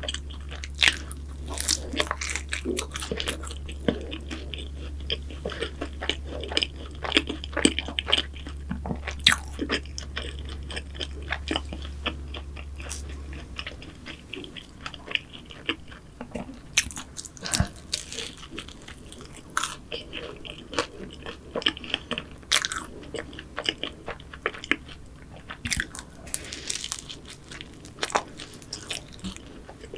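Close-miked eating of pastries: crisp bites and chewing with irregular crunchy crackles, busiest in the first half. A low steady hum underneath stops about halfway through.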